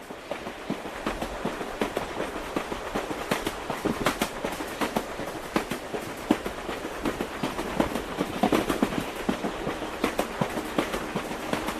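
Train wheels clattering on the rails: a dense, irregular run of clicks and knocks over a steady rumble, building slightly.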